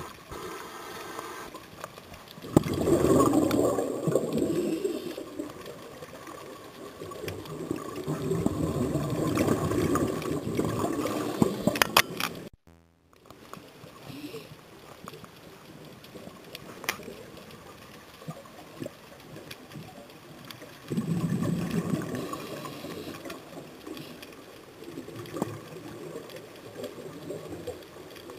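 Scuba regulator breathing heard underwater through the camera housing: three loud bursts of exhaled bubbles lasting a few seconds each, with a lower steady hiss between them. The sound cuts out for a moment about halfway through.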